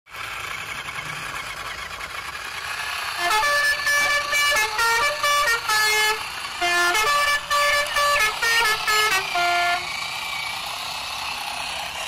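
A horn-like tune of short, buzzy notes stepping up and down in pitch, starting about three seconds in and stopping near ten seconds, over a steady whirring hiss.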